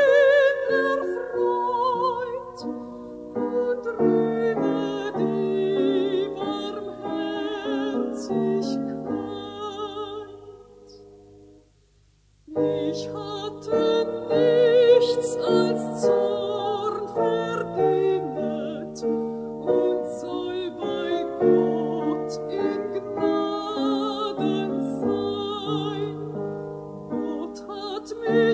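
Sung sacred music: a voice singing with vibrato over instrumental accompaniment. It fades almost to silence about eleven seconds in and starts again a second or so later, as between verses or pieces.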